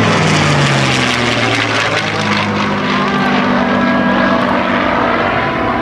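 P-51 Mustang and F-16 flying past together in formation. The Mustang's V-12 piston engine drones and drops in pitch over the first couple of seconds as they go by, over the steady rush of the jet.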